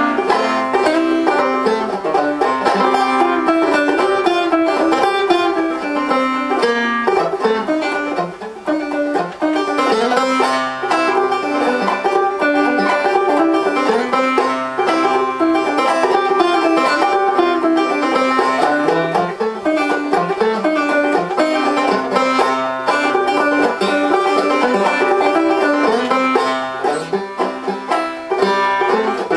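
Five-string banjo played solo in clawhammer style: a continuous, quick run of plucked notes with the down-stroke rhythm of an old-time fiddle tune.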